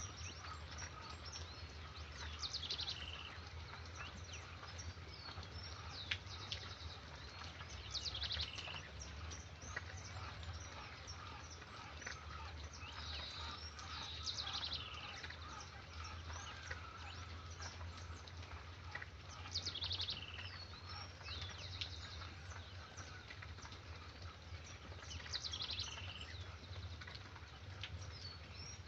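Songbird singing a short phrase that falls in pitch, repeated about every six seconds, with scattered chirps from other birds over a steady hiss of rain.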